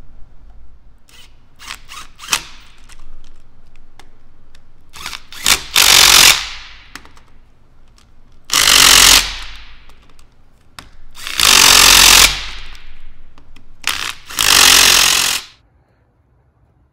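Cordless impact wrench hammering, tightening the housing bolts on a Linde HMF 50 hydraulic pump: a few short blips, then four loud bursts of about a second each, a couple of seconds apart.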